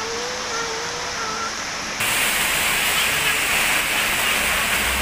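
Heavy rain pouring steadily. About two seconds in, the rain sound becomes suddenly louder and hissier.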